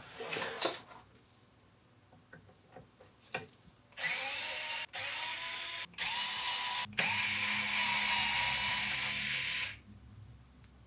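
Small electric screwdriver or drill running in four bursts, each starting with a rising whine as the motor spins up, the last burst the longest at about three seconds: backing out the screws that lock the 3D printer's Z axis for shipping. A little handling noise comes just before.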